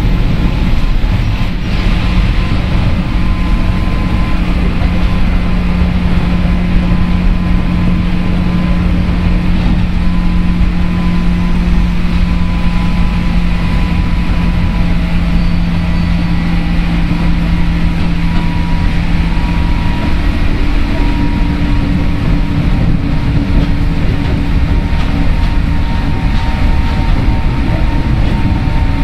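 A JR West 103 series electric train under way, heard from inside a motor car (MoHa 103): a continuous rumble of wheels on rail with a steady hum and several held tones from the running gear. The lowest hum dips slightly in pitch and fades about twenty seconds in.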